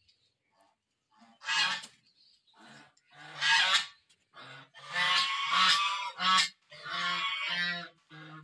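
White domestic geese honking: a run of loud calls, one after another, starting about a second in.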